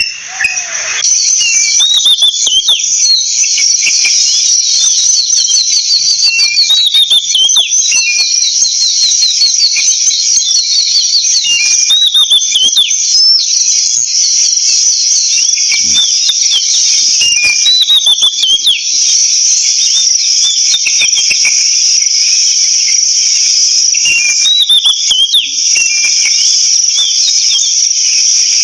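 Loud, steady high-pitched insect drone from crickets, with a songbird's short whistled, down-slurring phrases repeating over it every second or few seconds.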